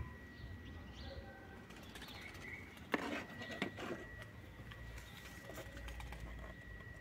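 Quiet outdoor background with birds calling faintly, over a faint steady high-pitched whine. A sharp click comes about three seconds in, followed by a few lighter clicks.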